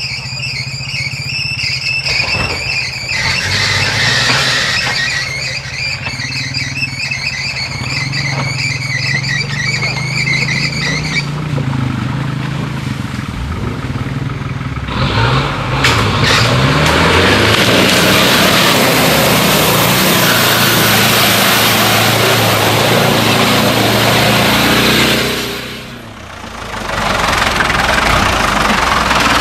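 Land Rover engine running and revving through an off-road section, with a high wavering whine over the first ten seconds or so. About fifteen seconds in, a loud, steady rushing noise joins it. That noise drops away briefly near the end, then comes back.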